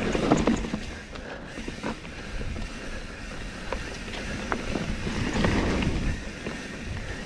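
Lynskey Live Wire SL titanium mountain bike rolling fast down dry, leaf-strewn dirt singletrack: tyre and trail noise with a few sharp clicks and knocks from the bike over bumps, and wind rushing over the handlebar camera's microphone.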